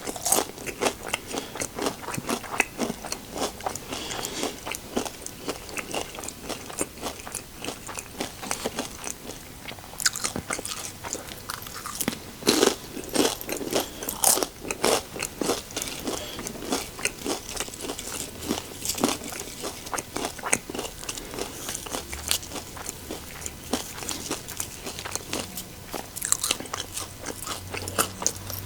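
Close-up chewing of tortilla-chip nachos with melted cheese: repeated crisp crunches and bites, irregular, from a person eating.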